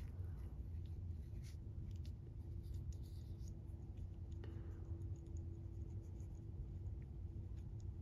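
Faint scratching and light clicks of a screw and washer being turned by hand into the end of a small machined metal part, over a steady low hum. A faint steady tone joins the hum about halfway through.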